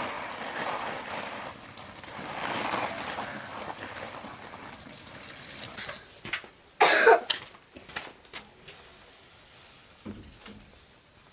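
A person coughing once, loudly, about seven seconds in, after several seconds of softer rushing noise.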